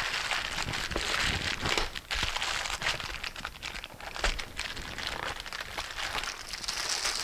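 Plastic courier mailer bag being torn open and crumpled by hand, a continuous crinkling and crackling with sharp tearing rustles as the box inside is worked free.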